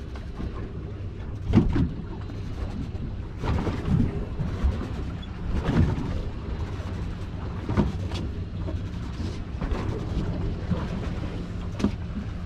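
A boat engine idling in a steady low hum, with irregular surges of water and wind noise and a few sharp knocks against the hull.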